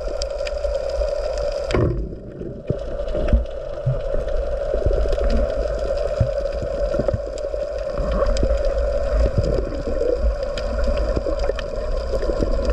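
Underwater sound picked up by a camera in its housing: a steady hum and low water rumble, with scattered sharp clicks and crackles throughout.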